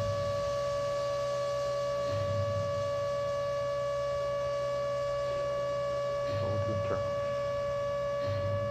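A steady, unwavering high tone with overtones, and under it a short low pulse about every two seconds.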